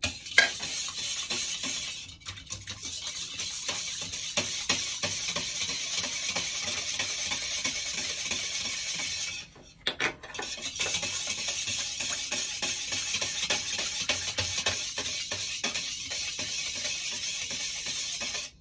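Wire whisk beating a thin, watery liquid in a stainless steel bowl, its wires rapidly clicking and scraping against the metal. It breaks off briefly about halfway, resumes, and stops abruptly at the end.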